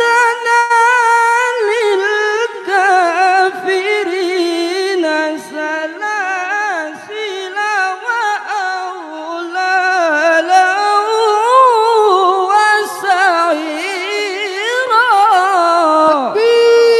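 A man reciting the Qur'an in melodic tilawah style: one long, high, heavily ornamented run, the voice sliding up and down in quick wavering turns, ending on a held note.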